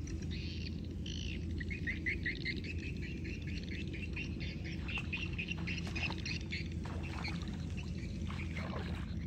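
A bird calling in a quick run of short, repeated chirps, several a second, with a few more scattered chirps later, over a low steady rumble.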